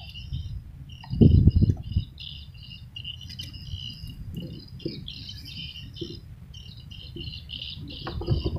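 Continuous high-pitched wildlife chirping, many short repeated calls overlapping, over a low rumble, with a louder burst of low rumbling about a second in.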